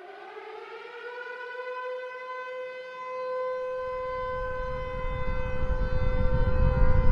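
Civil defense air-raid siren, already wound up, holding one steady wail. From about halfway through, a deep rumble builds beneath it and grows louder toward the end: the start of a synthesized nuclear explosion effect.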